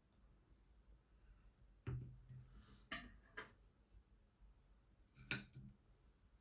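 Quiet handling noises: four short knocks and clicks, the first and last with a soft thud, about 2, 3, 3.4 and 5.3 seconds in, as of things being picked up and set down during food preparation.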